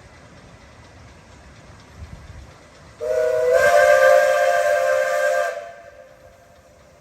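A narrow-gauge steam locomotive's whistle blown once, about three seconds in, for roughly two and a half seconds, sounding several pitches at once over a hiss of steam.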